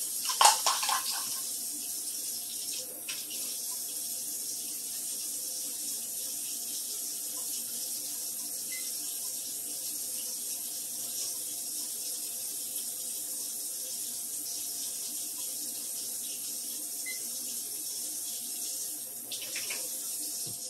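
A brief splash and clatter of plastic measuring cups about half a second in, as water goes into the bread machine's basket. Then a steady high hiss of running water, which stops abruptly at the end.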